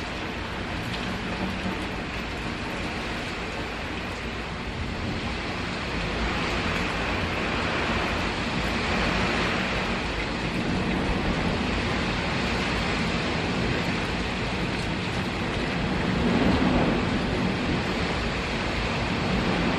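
Typhoon wind and rain: a continuous rushing noise of gusts and downpour that swells louder about a third of the way in and again near the end.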